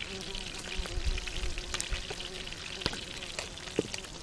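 Fish sizzling in a frying pan over a campfire: a steady crackling hiss with a few sharp pops. A faint steady hum runs underneath.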